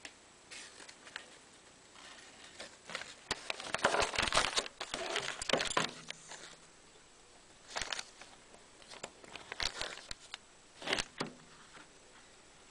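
Paper rustling and crinkling with handling noise as a brass MIG torch connector is moved about on a printed sheet, in irregular bursts: a long busy stretch around four to six seconds in, then a few shorter bursts.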